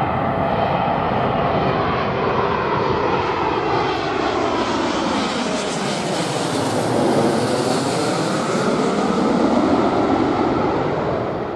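Air France Boeing 777-200ER's GE90 engines on low final approach with gear down, passing directly overhead: a loud, steady jet rumble and whine. The sound swells as the aircraft goes over, with a sweeping whoosh, and begins to fade near the end.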